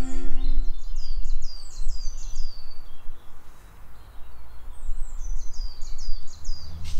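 A small songbird singing two quick runs of high, down-slurred notes, one early on and one about four seconds in, over a steady low rumble of wind on the microphone. A cello score fades out in the first second.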